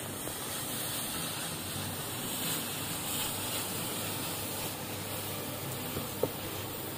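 Grated beetroot sizzling in a hot frying pan while it is stirred with a wooden spatula: a steady hiss as its moisture cooks off. One sharp click from the spatula a little after six seconds.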